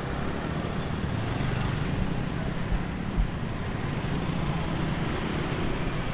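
Steady city street traffic: a continuous low hum of passing vehicle engines and road noise.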